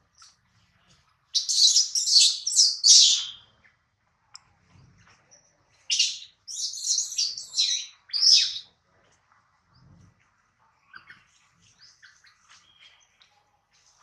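Baby macaque crying: two bouts of loud, shrill, rapid cries, one about a second in and one about six seconds in. Fainter chirps follow near the end.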